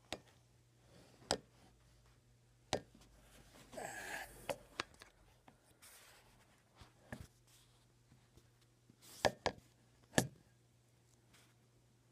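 Scattered sharp knocks and clicks of things being handled and set down, about ten in all, with a short rustle about four seconds in, over a faint steady hum.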